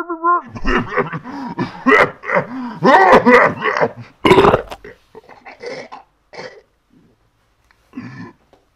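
A man's wordless vocal outburst: a run of loud, uneven noises with no words, loudest about four seconds in, then a few fainter sounds and a pause.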